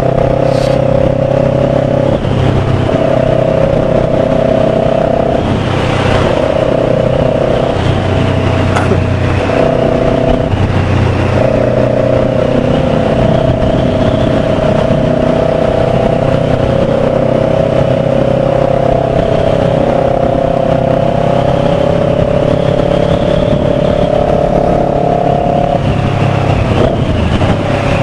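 Kawasaki Ninja 400's parallel-twin engine running under way, its pitch stepping up and down every few seconds with throttle and gear changes.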